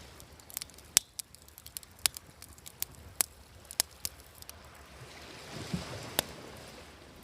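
A wood campfire crackling with sharp snaps and pops, the loudest about a second in, over waves washing on a shore, one wave swelling up and receding near the end.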